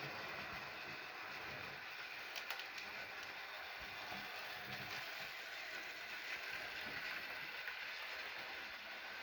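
OO gauge model train running steadily along the layout track, a continuous whir of motor and wheels on rails with a faint click or two about two and a half seconds in.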